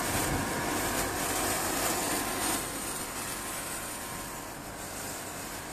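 Electric inflatable blower running: a steady rush of air with a motor whine held at one pitch, which fades out about four and a half seconds in.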